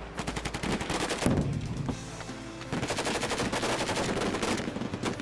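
Bursts of automatic rifle fire: a burst of about a second, then a longer, denser burst of about two seconds starting near three seconds in, over background music.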